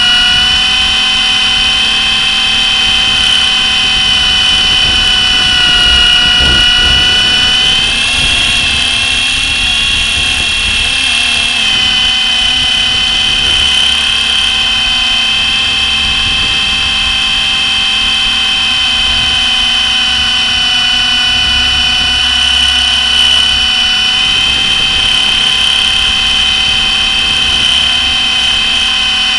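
Blade SR electric RC helicopter in flight: a steady motor and rotor whine that lifts and wavers in pitch for a few seconds about eight seconds in, then settles again. A low rumble of wind buffeting runs underneath.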